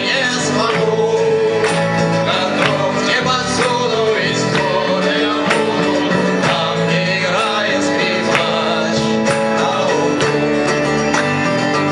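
Band playing a song, with singing over instruments and percussion hits.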